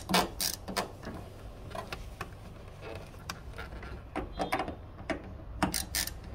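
Hand ratcheting screwdriver clicking as it drives a Torx screw into a plastic hood bug deflector: a run of sharp ratchet clicks at the start, softer ticking, then another run from about four seconds in.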